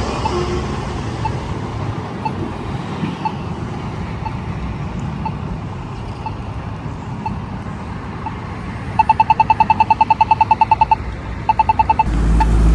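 Polara iNS2 accessible pedestrian signal push buttons ticking over road traffic: a faint locator tick about once a second, then about nine seconds in the rapid ticking of the walk indication, about ten ticks a second for two seconds, a short break, and another brief run.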